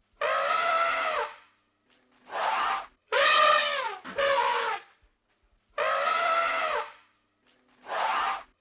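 An animal's drawn-out calls, about six in a row, each lasting half a second to a second with a pitch that falls away at the end. They are separated by short silences, and the same calls recur as if looped.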